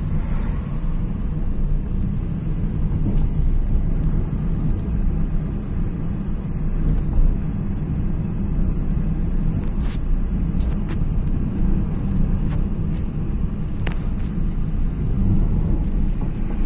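Steady low road-and-engine rumble of a car heard from inside its cabin while driving, with a few sharp clicks in the second half.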